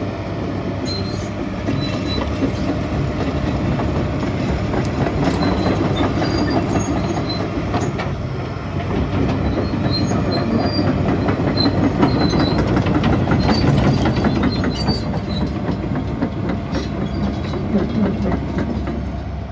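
Case CX330 excavator running and working, its engine rumbling under repeated metallic clanking with small high squeaks from the machine's moving steel parts. The sound swells and grows louder through the middle.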